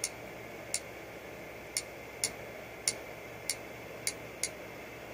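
Eight short, sharp clicks at uneven intervals over a low steady room hum, from keys or buttons being pressed one at a time.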